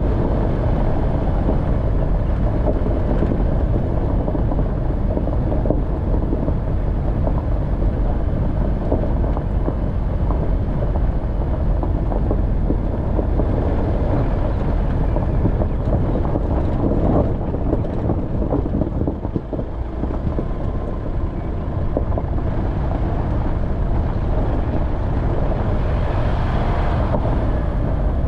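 Off-road vehicle engine running as it drives over a rough track, a steady low rumble with rattling and crunching, easing briefly about twenty seconds in before picking up again.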